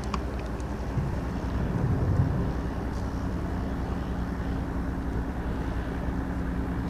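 Boat engine running slowly in reverse, a steady low drone that swells briefly about two seconds in.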